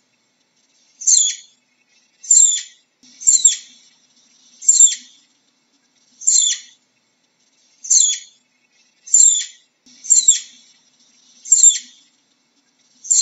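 Flying squirrel calling repeatedly: short, high-pitched calls that slide down in pitch, about one every second and a quarter.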